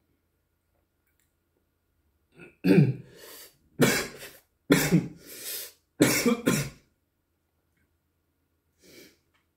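A man coughing, a run of about four harsh coughs from about two and a half seconds in, then a faint last one near the end. The coughs are the throat's reaction to the burn of a super-hot chili pepper he has just eaten.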